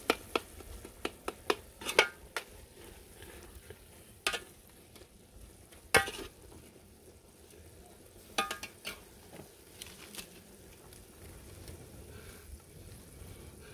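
Vegetables being stirred in a metal cooking pot over a wood fire: a run of sharp clicks and knocks against the pot, the loudest about six seconds in and a cluster a couple of seconds later, thinning out in the second half, over a low sizzle from the pot.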